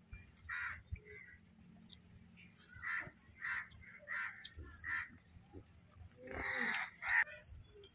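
Crows cawing several times, short hoarse calls about half a second apart, with a longer, louder call near the end.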